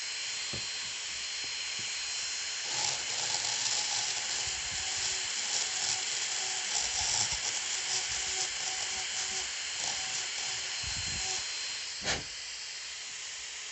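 High-speed dental handpiece running with a steady high whine and air hiss as its inverted cone bur cuts a cavity in an upper first molar. The cutting grows busier about three seconds in. After a click about twelve seconds in, the whine stops and a softer hiss remains.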